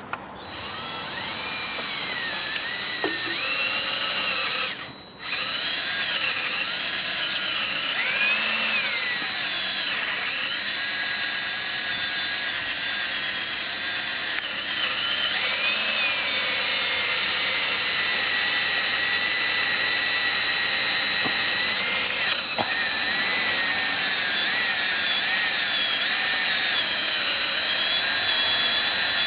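Handheld power drill running almost without pause, its motor pitch wavering up and down with trigger and load. It stops briefly about five seconds in and dips again a little past twenty-two seconds.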